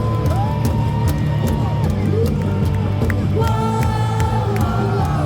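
Cheer music played over a baseball stadium's loudspeakers, with the crowd singing along and a steady beat of sharp claps.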